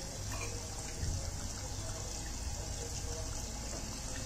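A puri frying in a steel kadai of oil, giving a soft, steady sizzle over a low hum. The oil is not yet fully hot, so the puri lies on the bottom and bubbles only gently.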